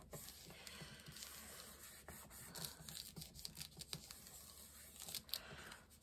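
Faint rustling and rubbing of card stock under hands as the glued card panel is pressed down and handled, with a few soft clicks.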